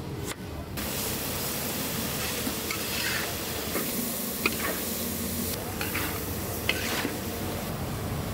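Fried rice sizzling as it is stirred in a huge pan, with a metal spatula scraping the pan and a few sharp clinks of metal on metal.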